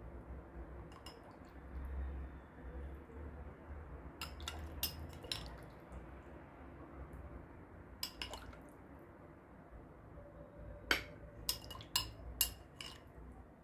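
A metal spoon scooping tomato sauce and clinking against a glass bowl, in short clusters of taps about four seconds in and around eight seconds, then a run of sharper clinks near the end.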